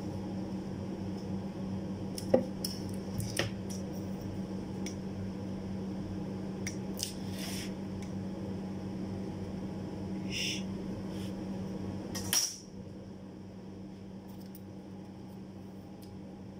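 Light metallic clicks and scrapes of metal tools being handled on a wooden workbench, over a steady low hum that cuts off suddenly about twelve seconds in.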